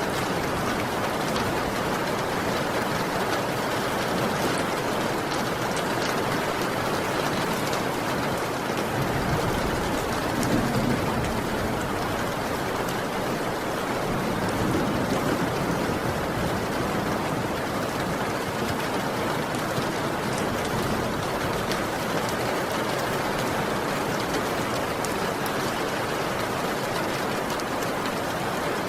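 Heavy rain falling steadily. A low rumble swells briefly about ten seconds in and again around fifteen seconds.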